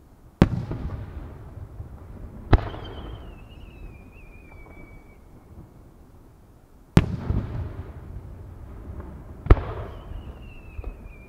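Aerial firework shells booming over a fireworks display: four sharp reports in two pairs a couple of seconds apart, each trailing off in a long rolling echo. A thin high whistle slides slowly down in pitch after the second and fourth reports.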